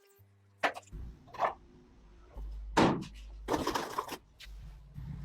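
A handful of separate knocks and clunks over a low steady hum, the loudest a little under three seconds in.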